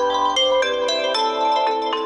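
OPPO A16 phone tone playing: a melody of struck, bell-like mallet notes, about three notes a second, each ringing on under the next.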